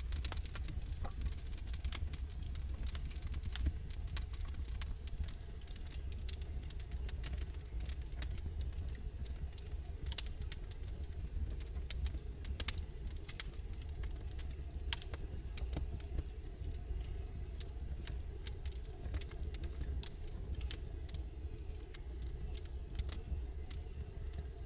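Wood logs burning in a fireplace, crackling with frequent irregular sharp pops and snaps over a steady low rumble.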